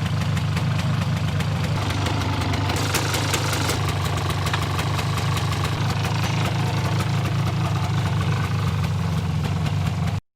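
A vehicle engine running steadily at an even speed, with a heavy low throb. It cuts off abruptly near the end.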